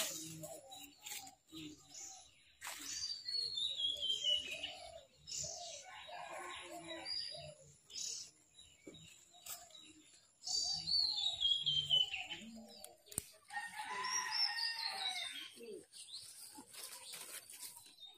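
Chickens clucking with a rooster crowing, while a small bird sings a falling run of high notes three times.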